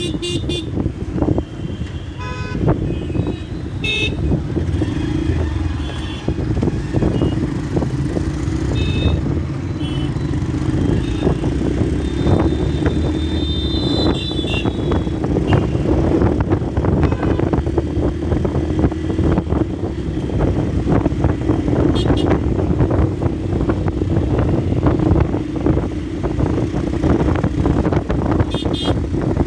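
Yamaha FZ-S single-cylinder motorcycle engine running steadily while riding through city traffic, with other vehicles' horns honking briefly several times.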